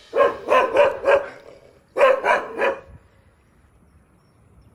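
A dog barking in two quick runs of short, high barks, four and then three, ending about three seconds in.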